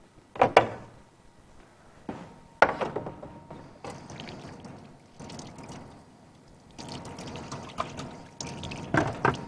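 Kitchen tap running water into a sink, starting about 4 s in and running again from about 7 s. There are a couple of sharp knocks of kitchenware before it, one about half a second in and one about 2.6 s in.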